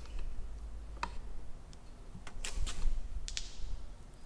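About half a dozen sharp clicks and taps as a Slick aircraft magneto is handled and turned by hand with its timing pin pushed into the distributor block, feeling for the pin to drop into its groove.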